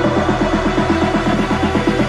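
Electronic background music with a fast, steady pulsing beat.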